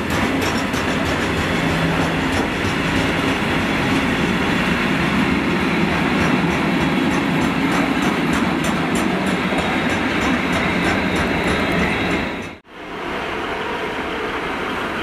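Freight train of hooded steel-coil wagons rolling past at close range, a steady loud rolling noise with fast clicking of wheels over rail joints. It breaks off abruptly near the end, followed by quieter steady train noise.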